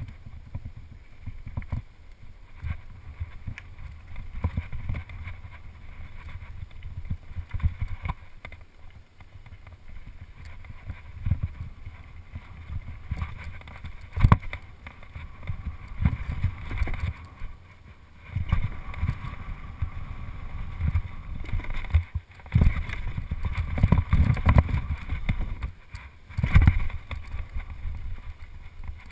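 Wind buffeting a helmet-mounted GoPro's microphone as a BMX bike rolls over a dirt jump track, an uneven low rumble that swells and fades, louder in the second half. Sharp knocks from the bike and its landings break in now and then, the strongest about halfway through.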